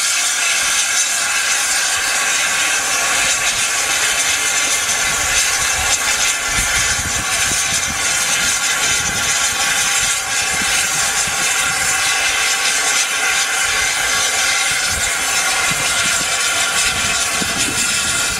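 Andrew Barclay 0-4-0 saddle-tank steam locomotive standing with steam hissing loudly and steadily.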